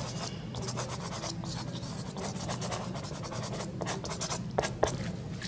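Soft pastel stick scratching across pastel paper in quick repeated strokes, over a steady low hum. Two sharper clicks come about four and a half seconds in.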